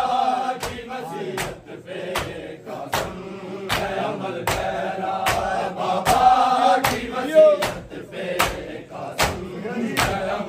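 Mourners beating their chests in unison (matam), a sharp slap about every three-quarters of a second, over a group of men chanting a noha.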